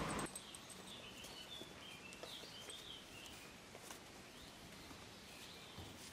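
Faint outdoor background with birds chirping in short bursts during the first few seconds and a few faint light taps. A louder noise cuts off right at the start.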